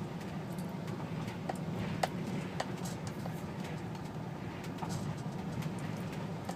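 Inside a truck's cab moving slowly: a steady low hum of the engine and road noise, with scattered faint clicks.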